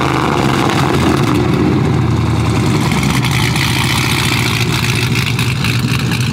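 Swapped-in 6.0-litre V8 from a 2013 truck, in a lowered custom pickup, idling steadily through its side-exit exhaust just after starting up.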